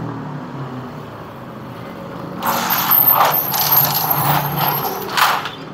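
Folding steel accordion gate being dragged shut: about three seconds of metallic rattling and clattering, ending in a sharp clank near the end as it closes.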